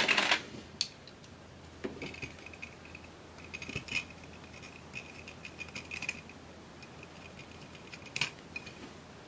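A screwdriver working a slotted screw in a metal gyroscope housing: a brief metallic clatter at the start as the tool is changed, then small sharp clicks and a faint, broken high squeak of the blade scraping in the screw slot.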